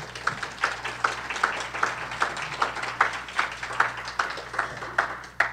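Audience applause: many people clapping steadily, with one nearer clapper standing out at about two and a half claps a second. It dies away near the end.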